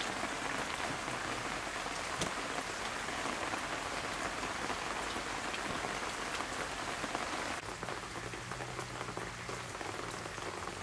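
Steady, even hiss of water, like rain, a little quieter for the last three seconds.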